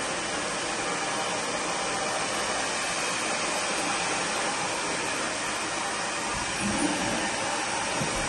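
Handheld hair dryer blowing steadily, an even rush of air that holds at the same level throughout.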